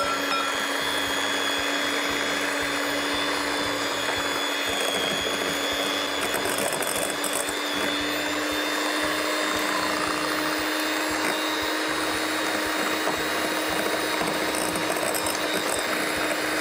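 Electric kitchen mixer running steadily at one speed, beating eggs one at a time into the batter, a constant motor whir with a steady whine.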